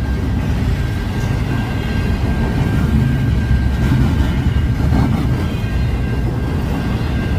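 Train rolling past with a steady low rumble and a thin, steady high whine over it.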